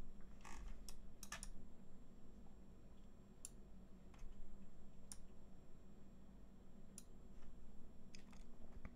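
Irregular computer keyboard and mouse clicks, a dozen or so scattered short clicks with gaps of up to two seconds, over a faint steady low hum.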